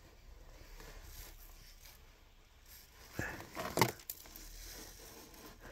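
Faint rustling handling noise, with a few short clicks and scrapes a little past three seconds in.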